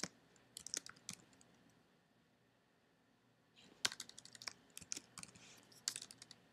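Faint typing on a computer keyboard: quick runs of key clicks, with a pause of about two seconds in the middle.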